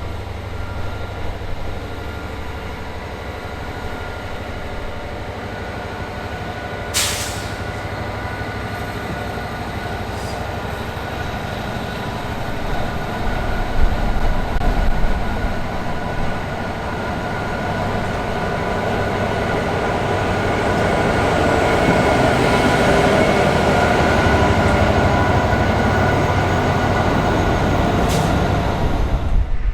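Class 69 diesel locomotive's EMD 710 two-stroke V12 engine running, getting louder through the second half. A sharp knock about a quarter of the way in.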